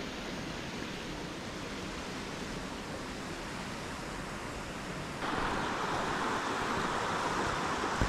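Mountain stream rushing: a steady hiss of running water that turns louder and brighter about five seconds in.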